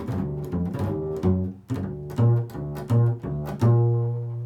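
Improvised music on a plucked string instrument: a slow line of low notes, each struck and left to ring, the last held longer near the end.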